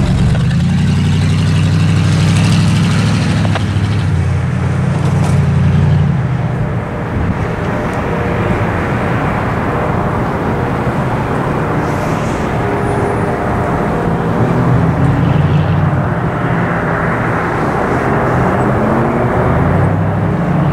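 Road traffic: cars driving across the railroad crossing, with a steady engine hum and tyre noise. Near the end a vehicle's engine rises in pitch as it pulls away.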